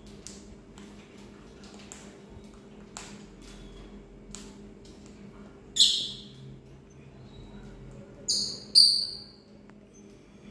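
Parrot calling: one loud harsh screech about six seconds in, then two short sharp calls in quick succession near the end, with faint scattered clicks between.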